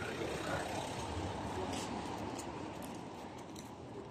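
Street ambience with a steady low engine rumble from a motor vehicle, easing off slightly toward the end, and a few faint ticks.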